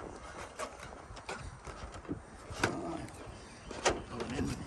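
Scattered light clicks and knocks, about five in all, as a metal roof-edge trim piece is slid and pressed into place by hand.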